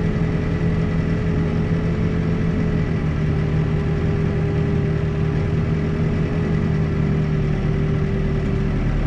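Backhoe's diesel engine running steadily at a constant speed, its pitch unchanging.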